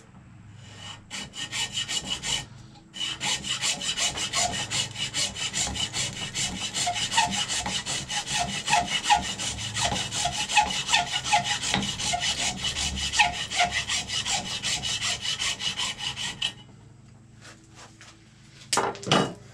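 Hacksaw cutting off the solid tip of a horn in rapid back-and-forth strokes, with a short break about two and a half seconds in. The sawing stops about sixteen seconds in, when the tip is through, and a short knock follows near the end.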